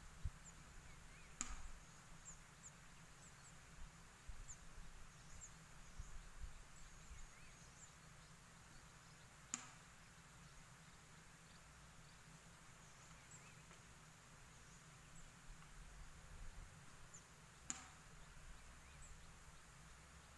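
Near silence: faint outdoor ambience with scattered faint high chirps and three sharp clicks, about eight seconds apart.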